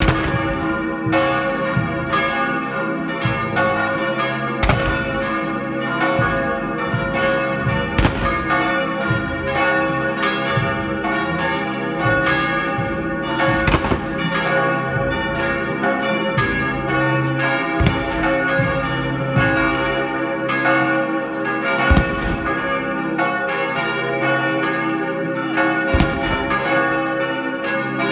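Church bells pealing continuously, several bells ringing together, with a few louder strikes standing out every few seconds.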